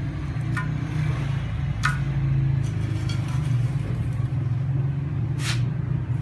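Steady low hum with a few sharp metallic clinks of metal baking rings being handled, the loudest about five and a half seconds in.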